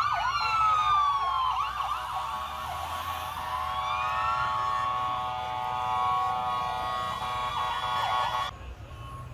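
Several emergency-vehicle sirens sounding at once, their overlapping tones rising and falling, over a low traffic rumble. They cut off suddenly near the end.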